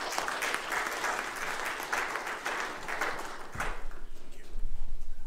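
Congregation applauding as the sermon ends, many hands clapping together; the clapping thins out a little after three seconds. Low thuds and rumbling follow near the end.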